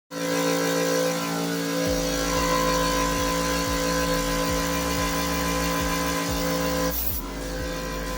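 PCP high-pressure air compressor running: a steady motor hum, joined about two seconds in by a low pulse repeating about every two-thirds of a second. The high hiss drops away about seven seconds in.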